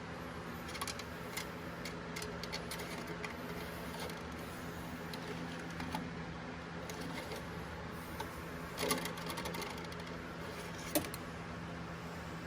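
Engine oil dipstick being handled, with scattered light clicks and rattles, a cluster about nine seconds in and a sharp click near the end, over a steady hum.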